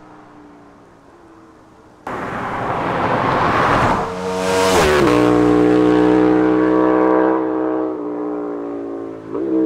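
KTM 1290 Super Duke R's V-twin engine through its exhaust: quiet at first, then suddenly loud about two seconds in, revving, and dropping in pitch. It holds a steady loud note, eases off, and is blipped once briefly near the end.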